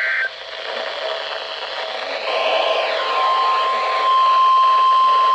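NOAA Weather Radio alert over receiver hiss: a warbling SAME data burst of the alert header cuts off right at the start, then about two seconds in the steady 1050 Hz warning alarm tone begins and holds, growing louder about four seconds in. The tone signals that a new warning message follows.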